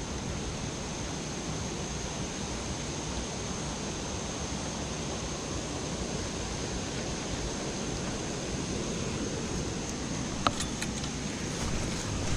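Steady rushing noise of flood-swollen stream water running through a rapid, with a few sharp clicks near the end.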